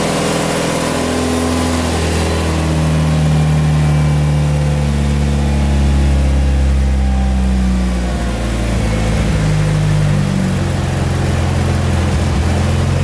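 Mitsubishi Lancer Evolution VIII's turbocharged four-cylinder engine idling, loud, its idle speed stepping up about two and a half seconds in, dropping back around eight seconds and rising again around ten: the idle is raised by the air-conditioning load.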